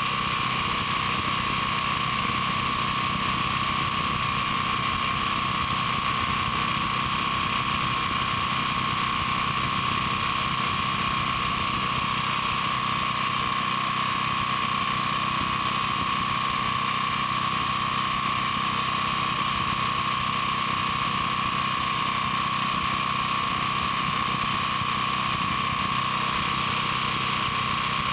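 Portable generator's air-cooled engine running at a steady speed, with a steady high whine over the engine note. The brush-excited generator end is spinning with its end cap off, under test and putting out normal voltage.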